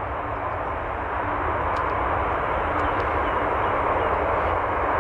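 Jet engines of a heavy airliner coming in to land: a steady roar with a low rumble underneath, growing slightly louder.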